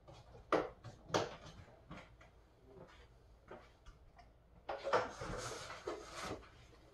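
Two sharp knocks of jars and lids being handled on a workbench, with a few lighter clicks after them. Near the end comes about a second and a half of rustling handling noise as the camera is moved.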